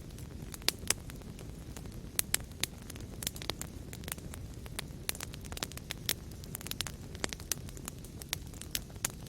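Fireplace fire crackling: irregular sharp snaps and pops, several a second, over a steady low rumble of the burning.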